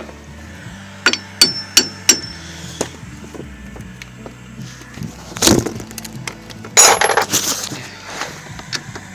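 Metal tools clinking against metal as a socket is worked onto a seized bolt: four sharp, ringing clinks in quick succession about a second in, then a dull knock and a louder clatter past the middle.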